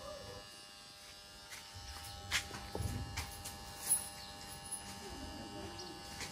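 A steady electrical buzz made of several fixed tones, with a few sharp clicks and clinks, the loudest about two and a half and four seconds in, and a low thud near three seconds.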